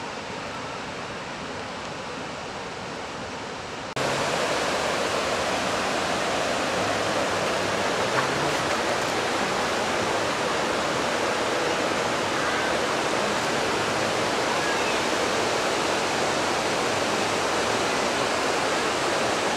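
The Roaring River cascading over the boulders of the Alluvial Fan waterfall: a steady rush of water that jumps louder about four seconds in.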